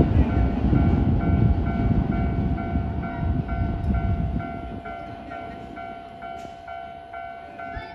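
Keisei 3000-series electric train running over a level crossing, its low rumble dying away about four and a half seconds in. Throughout, the crossing's warning bell keeps ringing in an even, repeating ding about twice a second.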